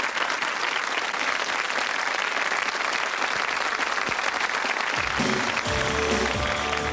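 Studio audience applauding; about five seconds in, the band's music starts up with bass and held notes under the clapping.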